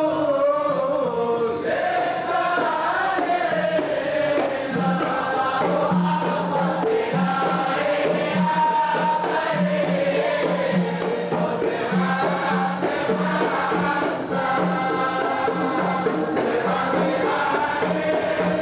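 A chorus of men singing a devotional Arabic qasida together. A steady low hum joins underneath about five seconds in.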